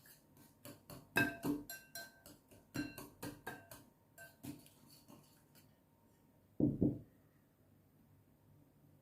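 A spoon clinking and scraping against a bowl while mixing mashed purple sweet potato with oat milk, in quick irregular strikes with a short ring that stop about five and a half seconds in. A little later come two dull low knocks.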